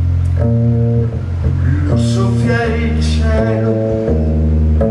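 Live band music in an instrumental passage: double bass holding a low line under sustained chords that change about every second, with a wavering higher melodic part near the middle.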